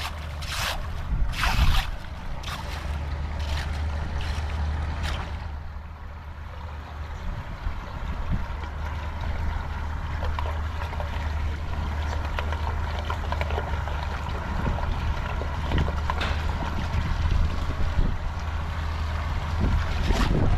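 Floodwater rushing and gurgling into a street drain that has been unclogged, with wind buffeting the microphone. There are several sharp noises in the first five seconds.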